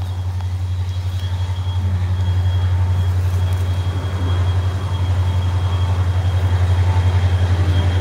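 A train passing: a steady low rumble with a fast regular pulsing, slowly growing louder.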